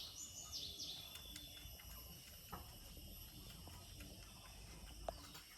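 Faint animal sounds: a few quick, high falling chirps in the first second, then a quiet stretch with a few soft clicks or knocks.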